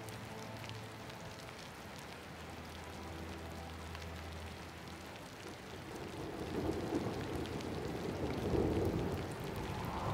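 Steady rain falling, with a rumble of thunder building about six seconds in and swelling twice.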